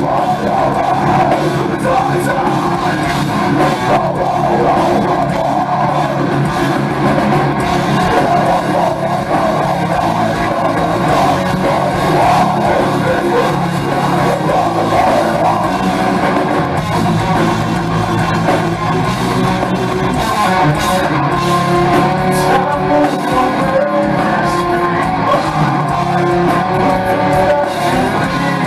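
Heavy metal band playing live at full volume, with distorted electric guitars driving a steady, dense wall of sound.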